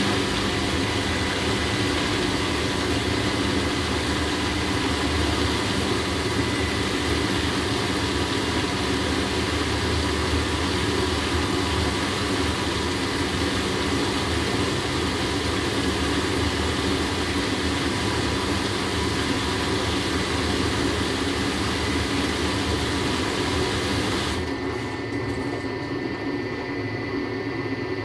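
Electric washing machine running steadily, its motor giving a constant hum with a faint high whine over a hiss of churning. About 24 seconds in the higher hiss drops away and the sound gets a little quieter.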